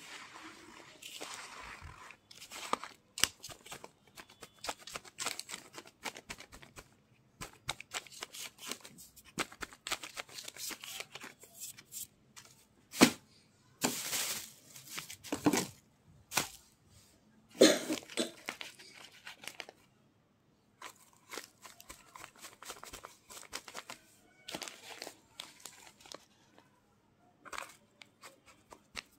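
Hand crunching and crumbling clumps of naphthalene powder, along with crinkling of plastic sheeting: irregular crackles and crunches, with a few louder snaps around the middle.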